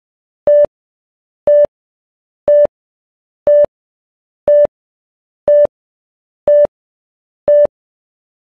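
Film-leader countdown beeps: eight short electronic beeps at the same pitch, one a second, ticking off the countdown numbers.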